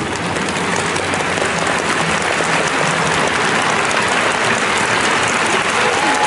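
Arena crowd applauding, the applause slowly growing louder.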